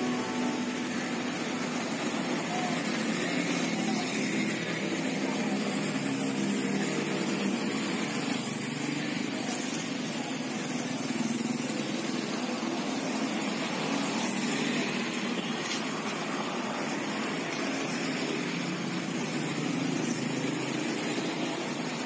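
Heavy diesel road-construction machinery, an asphalt paver and dump truck, running steadily at work with a constant engine hum and mechanical noise.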